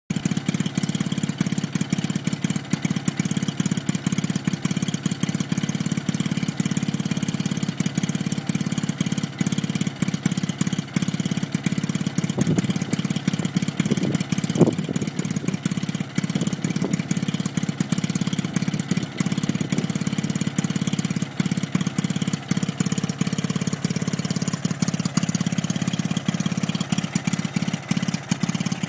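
Stuart Turner two-stroke stationary engine driving its 50-volt DC generator, running steadily with a rapid, even firing beat while lighting a board of bulbs. A brief sharper noise stands out about halfway through.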